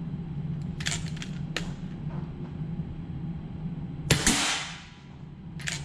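FX Verminator .22 PCP air rifle firing once: a sharp crack about four seconds in with a short ringing tail. A few light mechanical clicks come before and after it.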